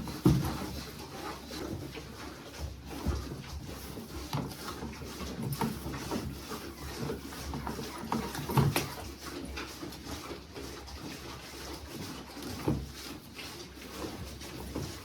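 Domestic animals making short, low sounds among scattered knocks and rustling, with the loudest calls just after the start and about two-thirds of the way through.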